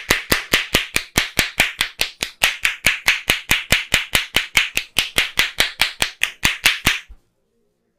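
A barber's hands slapping in a fast, even rhythm during a head massage: sharp clap-like strikes, about four to five a second, that stop about seven seconds in.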